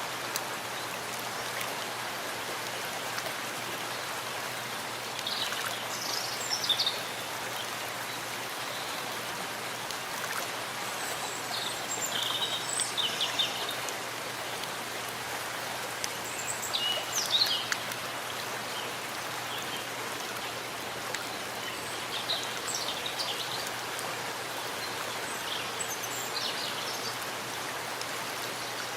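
Steady rain falling in a forest, an even hiss. Short bursts of high bird chirps come through it about five times.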